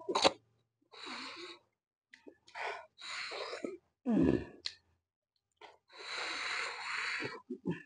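A person sucking hard on the open end of a cooked buffalo marrow bone to draw the marrow out, in about six airy slurping sucks, the longest near the end.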